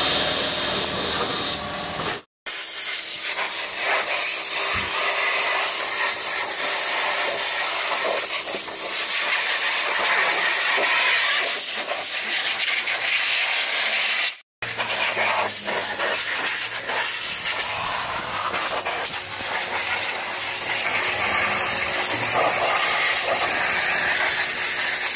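High-pressure washer jet spraying water onto a car's wheel and underbody: a steady, loud hiss that breaks off twice for a moment.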